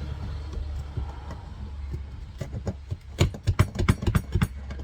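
Flathead screwdriver prying at the metal retaining ring on a clutch slave cylinder: a quick run of sharp metallic clicks and taps from about halfway through, over a steady low hum.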